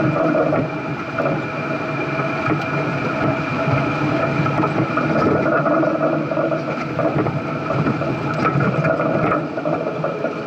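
Off-road 4x4 engine running steadily at crawling speed, with a constant high whine on top.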